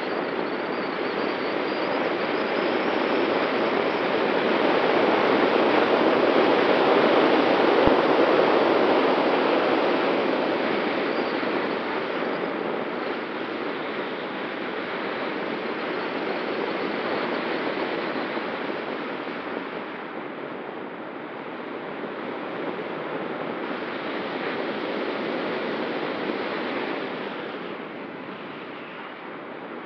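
Rushing slipstream of an ASW 19 glider in flight over a wing-mounted camera, swelling louder a few seconds in and easing off toward the end, with a faint steady whistle underneath.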